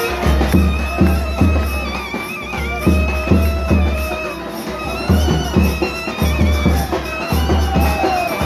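A nadaswaram, the South Indian double-reed pipe, plays a wavering, ornamented melody over repeated thavil drum strokes, as in a temple procession band.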